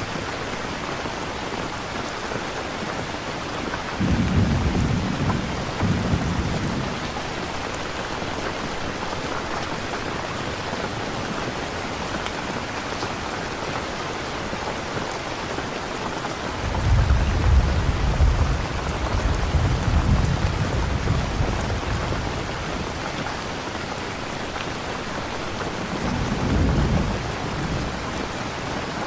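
Steady heavy rain with rolling thunder rumbling low three times: once a few seconds in, a longer roll in the second half, and a short one near the end.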